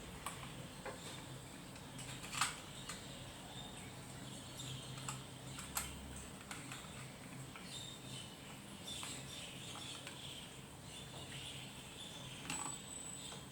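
Scattered light clicks and scrapes of hand work on a kitchen wall socket as it is screwed back together, the sharpest clicks about two and a half and six seconds in.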